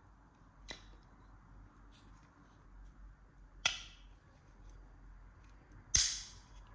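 Three sharp taps of small hard objects being handled, about a second in, around the middle and near the end; the last is the loudest and rings briefly.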